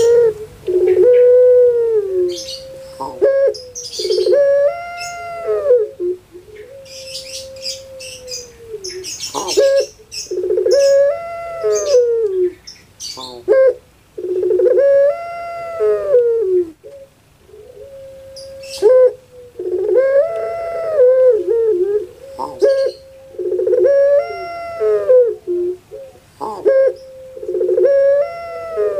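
Female ringneck (Barbary) dove, the Indonesian puter, cooing over and over in a rhythmic, crying-style coo. Each long coo swells up and sags down in pitch, and one comes every few seconds.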